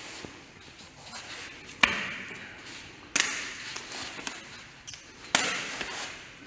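Sharp slaps of hands and forearms striking each other in a Wing Tsun contact drill: three loud ones, spaced about a second and a half to two seconds apart, with lighter taps between. Each loud slap trails off in a short echo.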